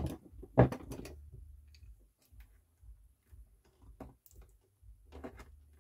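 Scattered light clicks and taps of fingers and a small hand tool on a turntable's metal motor mount as its retaining clips are worked loose, with a louder knock a little over half a second in.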